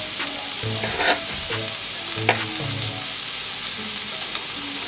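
Beef burger patties frying on a hot flat griddle with a steady sizzle, and a couple of sharp knife clicks as an onion is sliced.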